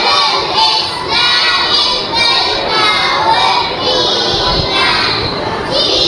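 A children's choir singing together into stage microphones, many young voices at once, loud throughout.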